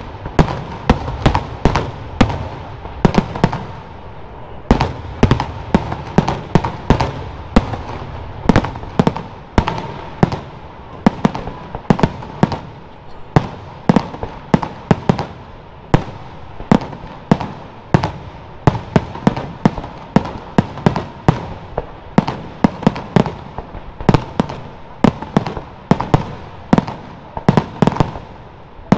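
A barrage of aerial firework shells bursting in quick succession, two or three sharp bangs a second with no letup.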